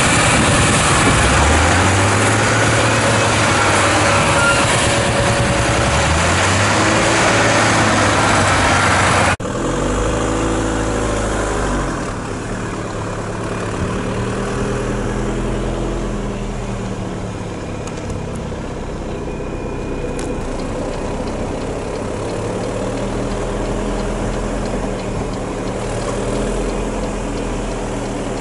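Magirus-Deutz six-wheel tipper truck's air-cooled diesel engine running loud under load, its pitch climbing in several steps as it pulls away. About nine seconds in the sound cuts abruptly to a quieter vehicle engine whose pitch slowly rises and falls.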